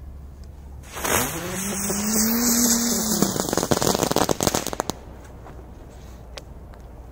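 A 'rose' firecracker (розочка) goes off: about a second in, a loud hiss starts with a whirring tone that rises and then falls. It ends in a rapid crackle of small pops that dies away about five seconds in.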